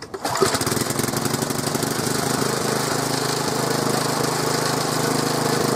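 1990 Briggs & Stratton 3.5 hp single-cylinder four-stroke lawn mower engine pull-started, catching right away and then running steadily. It is being left to run until its tank is dry, burning off the last of the fuel before storage.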